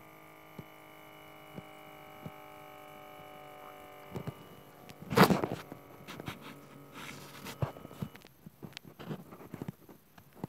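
A faint steady hum with a few small clicks, then about halfway a loud knock followed by rustling and scattered clicks as the phone is handled and moved.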